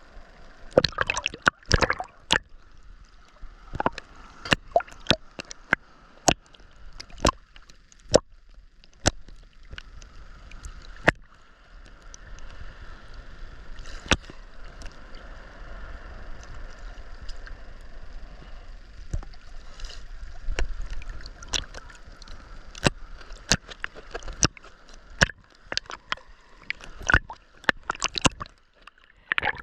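Seawater splashing and sloshing close by, with many irregular sharp splashes over a steady wash of water noise.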